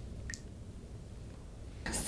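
Quiet room tone with a low steady hum and one faint, short click about a third of a second in; a woman's voice starts right at the end.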